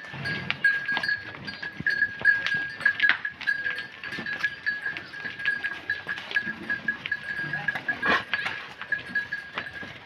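A herd of Tharparkar cattle walking along a dirt lane: scattered hoof steps and knocks, with a steady, pulsing high-pitched tone running through.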